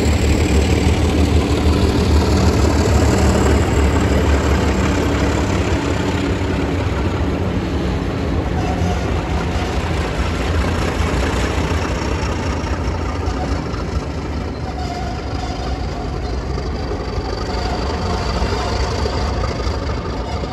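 Diesel-electric locomotive engines running with a steady low rumble as two locomotives at the rear of a passenger train pass and draw away, growing gradually fainter.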